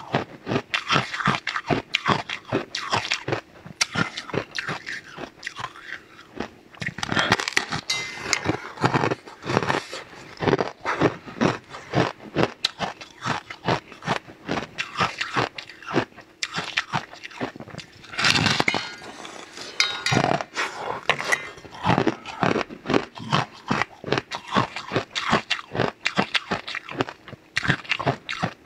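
Close-up crunching and chewing as a large, thin, brittle white crisp sheet is bitten off and eaten: dense crackly snaps, louder at each fresh bite.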